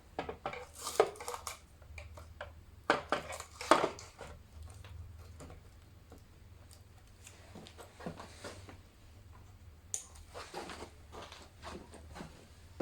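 Clicks, knocks and clatter of hard objects being handled on a table, in several short clusters, the loudest a few seconds in. A steady low hum runs underneath.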